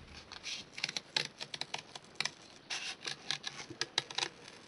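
Scissors snipping through the coated card of a milk carton: a run of short, irregular cuts.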